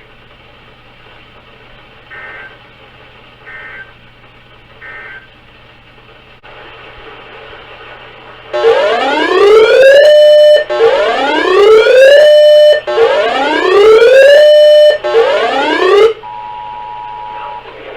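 Emergency Alert System tones. First come three faint, short end-of-message data bursts about a second and a half apart. Then, about halfway through, four loud rising siren-like whoops of about two seconds each, and near the end a brief steady two-tone attention signal.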